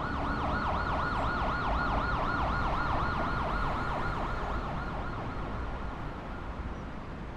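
Emergency vehicle siren in a fast yelp, sweeping up and down several times a second and fading away over the last few seconds, over a low rumble of city traffic.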